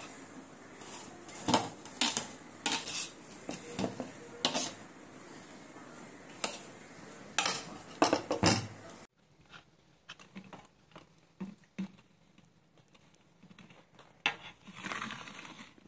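Metal spatula scraping and clinking against a steel plate while stirring and spreading roasted gram flour. Sharp, irregular clinks for about the first nine seconds, then quieter, sparser taps.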